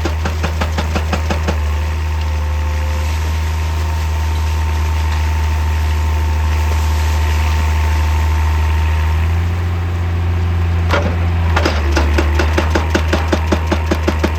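Excavator's hydraulic breaker hammering rock in rapid, even blows for about the first second and a half, then only the excavator engine running steadily. Near the end there is a single sharp knock, and the rapid hammering starts again.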